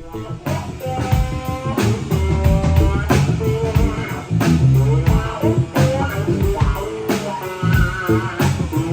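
Background band music with guitar and a steady drum beat, starting abruptly.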